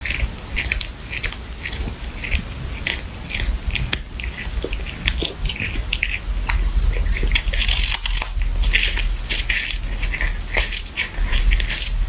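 A cat crunching and chewing a hard, stick-shaped treat held in its paws, close to the microphone: a quick, irregular run of crisp crunches and bites.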